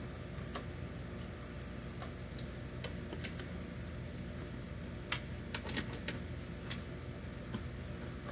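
Irregular light clicks and taps of tool and hand work on a pickup truck's door-mounted side mirror, coming more often about five seconds in, over a steady low hum.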